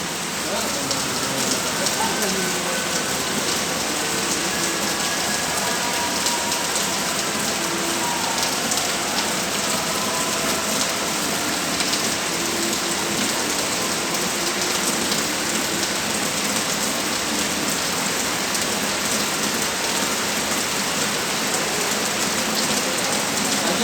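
Steady rain falling and spattering on the ground and hard surfaces, a continuous even hiss.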